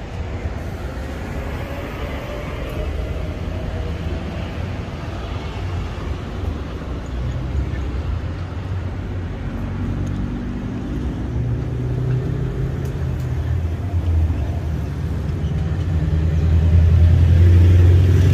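Road-vehicle engine rumble, low and steady, swelling to its loudest in the last few seconds as a deep engine hum.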